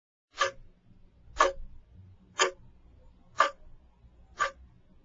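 Steady ticking: one short tick every second, five ticks in all, with a faint low hum between them.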